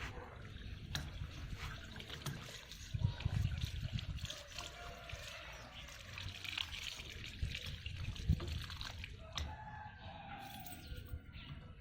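Water trickling and splashing as hands are washed.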